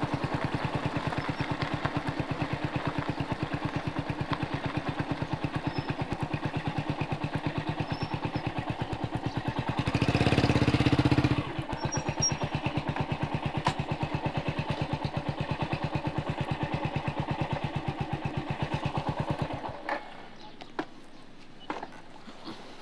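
Motorcycle engine running steadily with an even pulsing beat, with a louder rushing burst for about a second and a half near the middle. The engine cuts off suddenly about twenty seconds in, leaving a few faint clicks.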